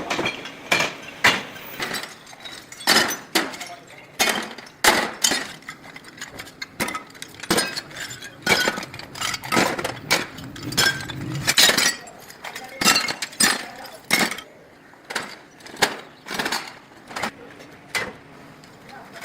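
Hard pieces of scrap metal clinking and clanking against one another in an irregular run of sharp knocks, about two a second.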